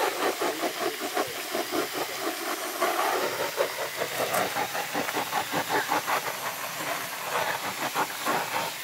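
Gas torch flame hissing steadily against the stainless steel of a new wood stove, warming the metal until it changes colour: the pre-heat given to a new stove before its first fire.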